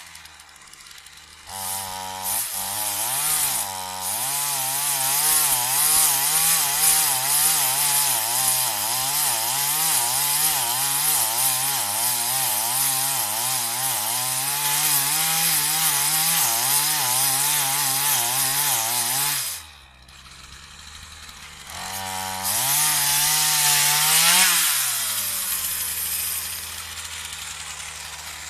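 Partner 340S two-stroke chainsaw cutting wood, its engine speed wavering up and down under load. About two-thirds of the way through it drops to idle, revs up once more briefly, then settles back to a steady idle near the end.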